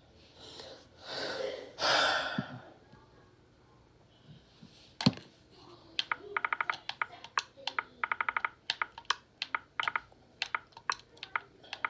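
Two breathy hisses of breath, then a single sharp click, followed by a run of irregular clicks and taps with two short rapid rattles.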